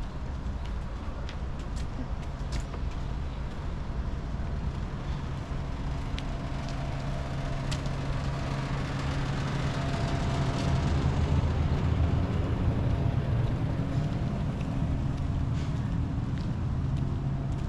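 A motor vehicle's engine running with a steady low hum that grows louder about ten seconds in and then eases off a little, as if the vehicle draws near.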